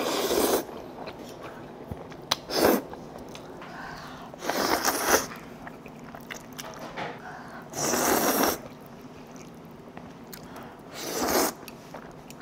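Five separate slurps of noodles being sucked up from a bowl, each about half a second long and two to three seconds apart, with faint chewing between them.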